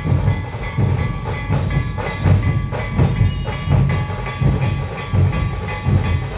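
Loud procession drumming, dhol-tasha style: a heavy, regular drum beat about twice a second with a steady ringing layer above it.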